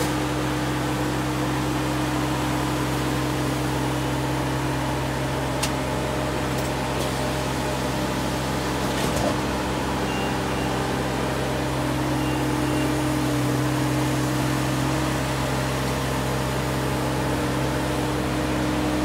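Hako Citymaster 600 sweeper's engine and litter-vacuum suction fan running as a steady hum, with a couple of brief faint clicks.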